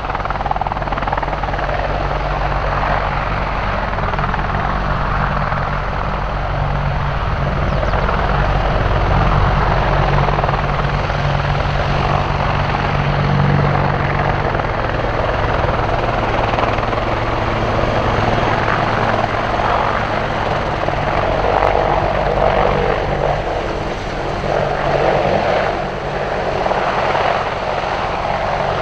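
AH-64 Apache attack helicopter hovering and manoeuvring low, its main rotor and twin turboshaft engines running steadily with a deep drone under the rotor noise. The level swells and eases as it moves.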